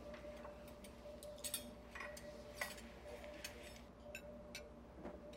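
Light clinks and taps of a metal fork against a plate as someone eats, a handful scattered irregularly, over a faint steady hum.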